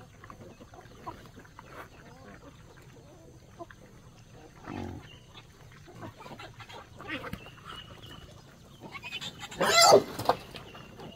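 Farm chickens clucking with short scattered calls, and one loud call lasting about a second near the end.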